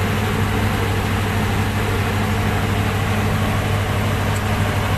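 Powercity marine diesel generator running steadily at about 1,500 rpm under electrical load, a continuous low engine hum.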